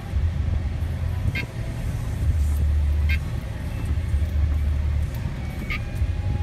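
Car engine and road rumble heard from inside the cabin while driving slowly, with a few short high clicks now and then.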